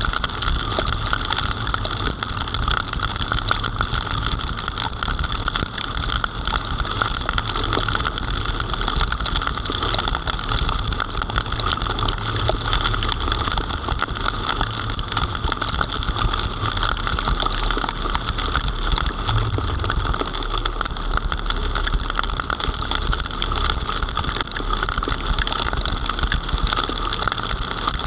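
Heavy rain hitting the camera, a steady dense patter of drops over the low rumble of a car driving on wet streets.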